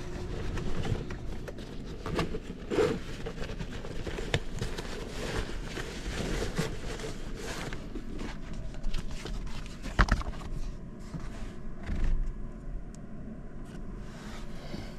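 Handling noise: rustling and scraping as a backpack is moved and a tablet in a fabric folio case is opened and set on a plastic cooler, with a sharp knock about ten seconds in.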